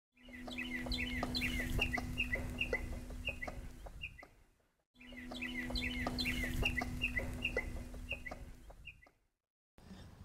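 Fowl clucking and chirping in quick short calls over a steady low hum; the same four-second stretch is heard twice, with a short break between.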